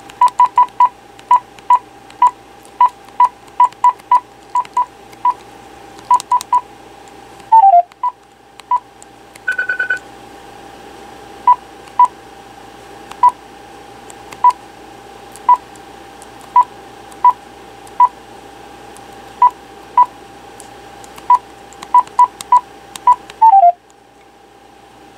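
Keypad beeps from a Clarity C4230 cordless phone as buttons are pressed, short single beeps in irregular runs over a steady tone. A short falling tone sounds about seven seconds in and again near the end, and a brief higher pulsing tone about ten seconds in.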